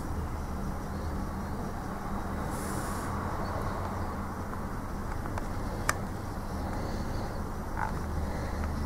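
Steady low hum with background noise, and a single sharp click about six seconds in.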